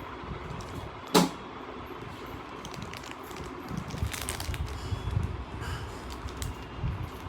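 Candy packaging being handled and opened: a sharp snap about a second in, then irregular rustling, crackling and soft knocks.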